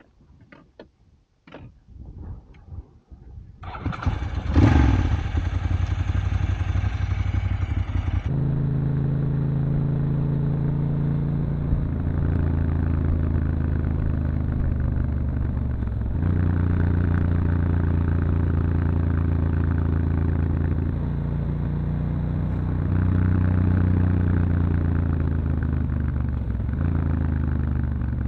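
1997 Ducati 900SS's air-cooled V-twin engine starting about four seconds in with one quick rev, then running as the bike rides off, its note stepping up and down with gear changes and throttle.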